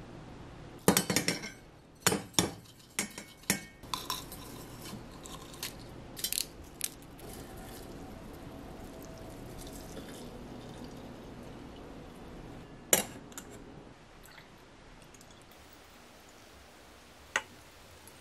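Sharp clinks of glass and metal as a glass tea jar and a glass teapot with a stainless-steel infuser are handled, then a steady pour of water into the teapot for several seconds. A single sharp clink comes about two-thirds of the way through, and another near the end.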